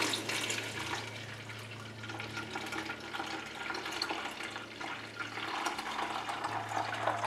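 Thick carrot, apple and spinach juice poured from a small jug through a kitchen sieve into a large plastic measuring jug: a steady splashing pour. A low steady hum runs underneath.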